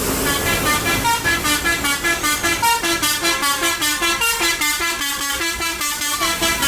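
Bus telolet horn, a Basuri multi-tone horn with a DAV module, playing a fast melody of short clipped notes, about four a second, stepping up and down in pitch.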